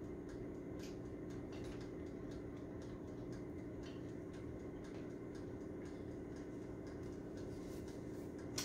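Countertop convection toaster oven running: a steady low hum from its fan and heating, with faint scattered ticks.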